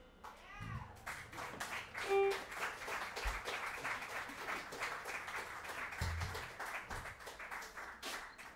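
Applause from a small audience at the end of the piece, a dense patter of hand claps beginning about a second in and fading away just before the end.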